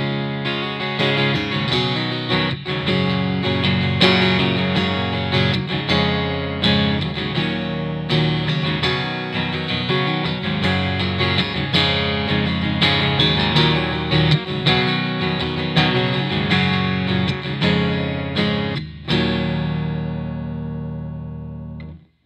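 Godin A6 hybrid guitar strummed through its undersaddle piezo pickup alone and played clean through a Fender Hot Rod Deluxe amp, giving its amplified acoustic sound. Chords are strummed steadily; about nineteen seconds in, a last chord is left to ring, and it is cut off sharply near the end.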